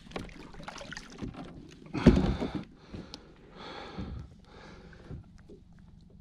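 A gaffed mahimahi being hauled aboard a plastic fishing kayak: a loud burst of knocking and rubbing about two seconds in as the fish comes over the side, then quieter knocks and scraping as it is laid in the cockpit.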